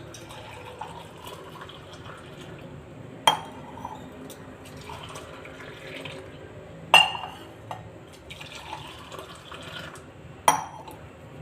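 Liquid being poured into a glass, trickling, with three sharp clinks that ring briefly, about three and a half seconds apart.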